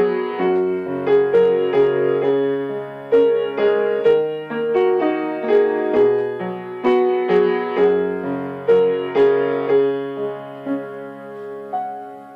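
Solo piano music: a gentle melody of single struck notes over held lower notes, thinning out and fading away near the end.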